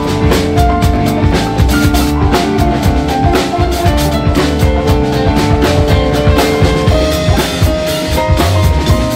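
Live band playing an instrumental passage: drum kit with bass drum and snare or rimshot hits, over sustained bass, piano and guitar notes.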